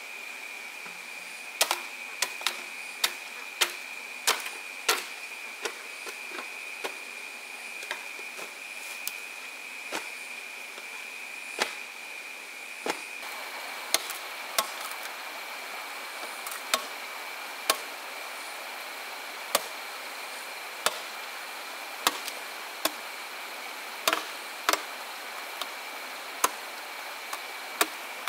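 Hand tool striking wood in irregular sharp knocks, about one a second with some in quick pairs, like chopping or hacking at timber or bamboo, over a steady high-pitched hum.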